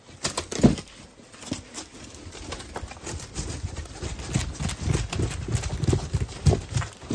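Braided cotton rope toys being rummaged and shifted about in a cardboard box: irregular thuds, knocks and rustling, with a loud thump under a second in.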